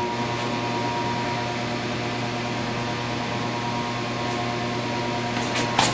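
Steady background hiss with a low electrical hum and no distinct events, broken by a brief click near the end.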